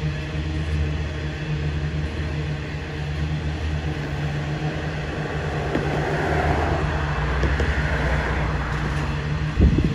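Loaded coal hopper train rolling past: a steady low rumble of wagons on the rails, swelling a little in the middle. Two heavy thumps come near the end.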